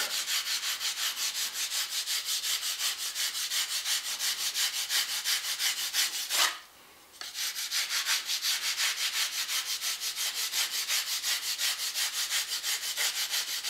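A steel ruler sawing back and forth across the top of a wooden mold frame packed with casting sand, a rapid, even gritty scraping with a short stop a little past halfway. It is the strike-off, levelling the packed sand flush with the frame so the mold lands flat when it is flipped.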